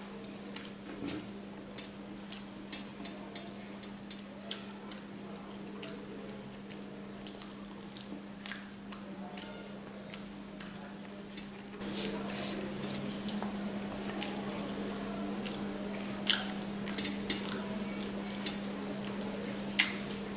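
Close-miked wet eating sounds: lip-smacking, chewing and sticky squelches of fingers working rice and fish curry, with many small clicks. A steady low hum runs underneath, and the eating noises get louder about twelve seconds in.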